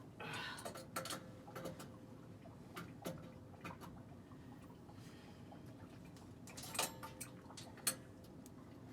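Irregular metallic clicks and taps from hand tools and plumbing parts being handled during work on a well pump pressure switch, the sharpest two near the end.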